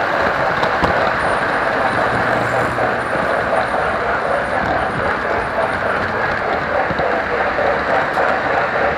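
Model train running on its track, heard close up from a car in the train: a steady, loud rolling rattle of wheels on rail with the locomotive's motor running.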